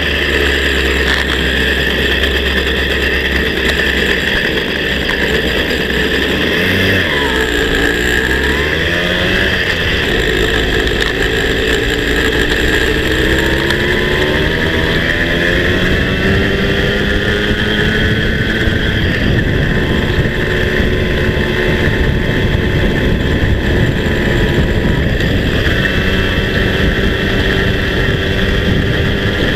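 Small two-stroke moped engine heard from on board while riding. Its note dips and wavers about seven to ten seconds in, then rises steadily as the moped accelerates and settles at a steady pitch.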